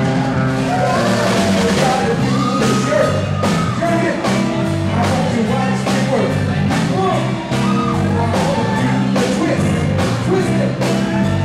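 Live soul band playing an up-tempo number: drums, electric bass and guitar under male lead vocals, with some shouted lines.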